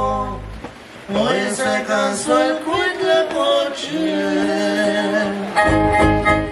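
Live band music. The band drops out briefly just under a second in, a singer's melody carries on with little accompaniment, and the full band with bass comes back in near the end.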